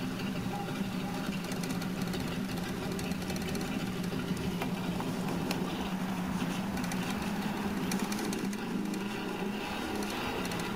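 A cloth with thick chrome polish paste being rubbed by hand over rusty chrome, with fine scratchy strokes over a steady low hum.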